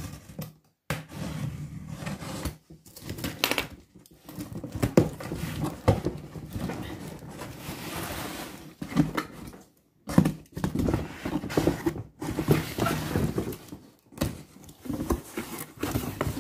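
Cardboard shipping box being handled and opened: rustling, scraping and knocking of the cardboard and its flaps, in irregular bursts with short pauses between.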